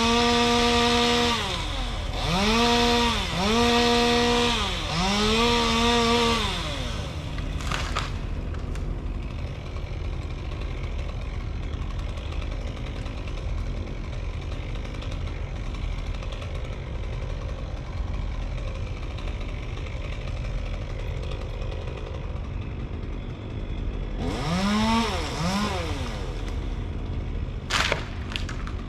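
Chainsaw held at full throttle and revved up and down several times, then dropping to idle about six seconds in and idling steadily for most of the rest. Near the end it is blipped up twice briefly, and a sharp click comes shortly before the end.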